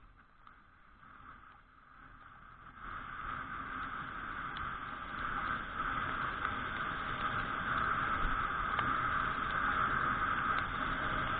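Suzuki Address V125G scooter riding on a rain-soaked road: a steady rush of engine, wind and wet-tyre noise that grows much louder about three seconds in as the scooter picks up speed.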